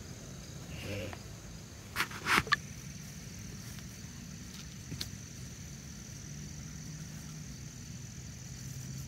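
Steady high insect chorus, an even drone held throughout, with a few sharp clicks about two seconds in.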